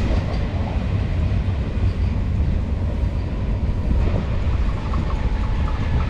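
Freight train's wagons rolling past on the rails, a steady low noise without distinct wheel clicks.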